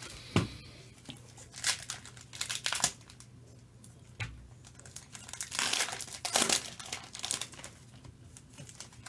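Foil trading-card pack wrappers crinkling and tearing as packs are ripped open by hand, in short separate rustles with a denser run after the middle, over a faint steady low hum.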